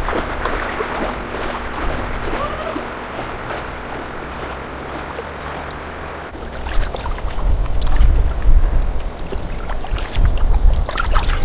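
Water sloshing and swishing around a person wading through a shallow river. From about six seconds in a loud low rumble takes over, and near the end a catfish thrashes and splashes in shallow water among rocks.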